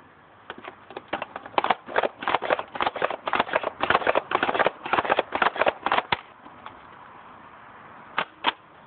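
Buzzbee Range Master toy dart blaster being pumped, a quick run of pump-stroke clacks at about four a second for some five seconds, then two sharp clicks near the end.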